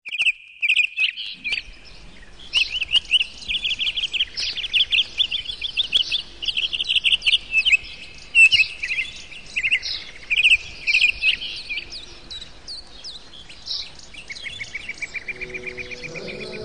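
Birds chirping and trilling in quick, high phrases. Near the end a rapid, evenly pulsing trill sets in, and faint sustained music notes begin to come in.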